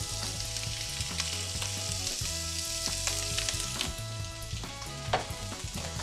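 Food cooking on a hob: a steady sizzling and bubbling hiss from the pans, with a few light knocks of utensils.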